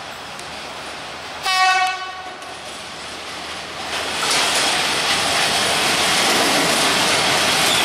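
Alstom X72500 diesel railcar sounds one short horn blast about a second and a half in, then runs past close by, its running noise growing loud from about four seconds in.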